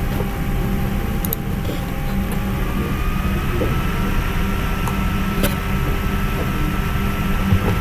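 Steady low hum and rumble of background noise, with a few faint clicks about a second in and again near the middle.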